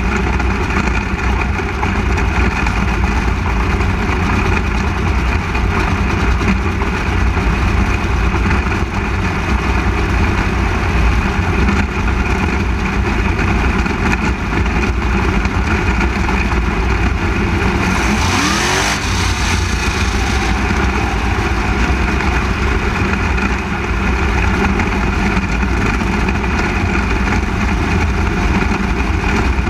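360 sprint car's V8 running hard at racing speed, heard loud and steady from a camera mounted on the car. About 18 seconds in, a brief sharp burst of noise with a falling pitch cuts through it.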